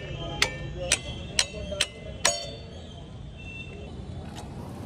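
Sharp metallic clicks with a short ringing tail, about two a second, stopping about halfway through. This is a hand tool working the bolt as the Revolt RV400's belt pulley is tightened.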